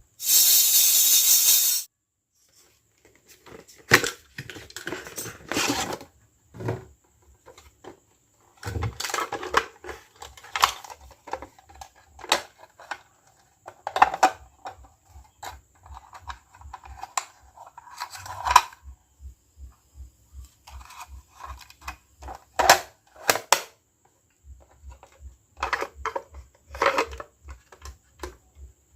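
Small plastic toy pieces and packaging being handled: a loud burst of noise under two seconds long at the start, then scattered clicks, taps and rustling. A faint, evenly spaced low pulse runs underneath in stretches.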